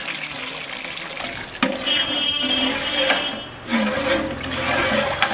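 Water poured in a stream into a large aluminium cooking pot, splashing into the spiced oil base already in it, with a knock about one and a half seconds in.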